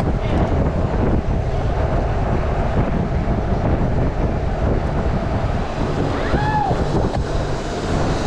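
Wind buffeting the microphone of a moving electric bike: a steady, loud rumble and hiss. A brief high-pitched cry rises and falls about six seconds in.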